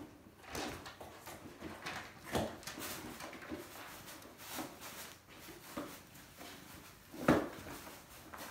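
Kittens playing with cardboard boxes on a wooden floor: scattered light knocks and scuffs of cardboard and paws, with a sharper knock about seven seconds in.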